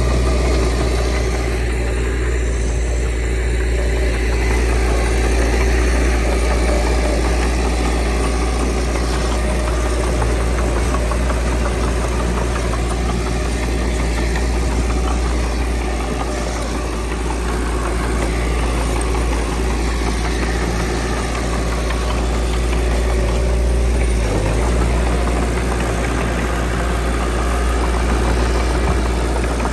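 Diesel engine of earthmoving machinery running steadily, with most of its sound deep and low.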